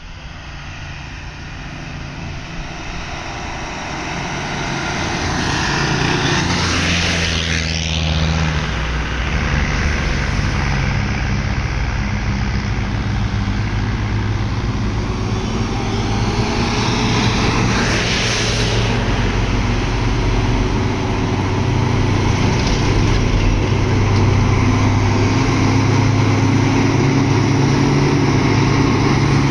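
Diesel engines of heavily loaded trucks climbing the grade, with a low engine note that grows steadily louder over the first few seconds as they come closer, then stays loud.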